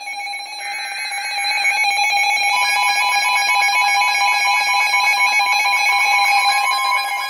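Emergency Alert System broadcast: a short burst of the SAME digital header, a harsh buzzing screech lasting about a second, gives way to the two-tone EAS attention signal. This is a loud, steady dual-tone alarm whose lower tone swells up and is joined by a second, higher tone a couple of seconds in. It signals that an emergency warning message follows.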